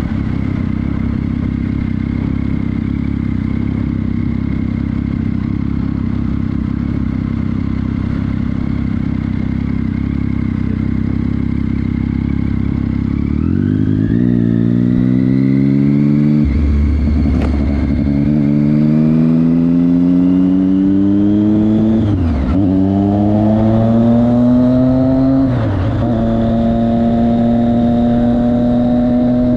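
Motorcycle engine at a low, steady rumble, then about halfway through it accelerates hard, rising in pitch through the gears with three quick upshifts, and settles into a steady higher-revving cruise near the end.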